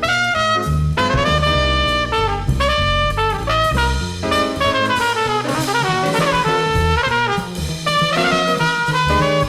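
Live small-group jazz: a horn plays a quick, moving melodic line over a walking bass and drum kit. It is heard as an FM radio broadcast recorded onto cassette tape.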